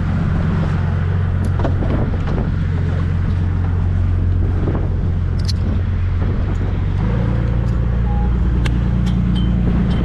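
Parasail tow boat's engine running steadily under way, a low drone whose note shifts abruptly about seven seconds in.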